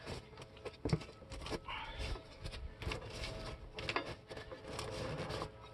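Scattered small clicks and rustles of gloved hands working at a snow cab's snap and spring fittings on a garden tractor's frame.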